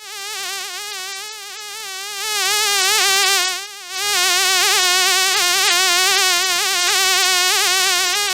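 House fly buzzing close to the microphone: a loud, steady wing drone whose pitch wavers constantly. It swells louder about two seconds in and drops out briefly near four seconds, as the fly moves toward and away from the mic.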